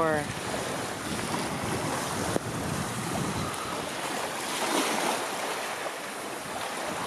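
Thunderstorm wind gusting hard, buffeting the microphone, with heavy rain starting to pour: a steady rush of noise.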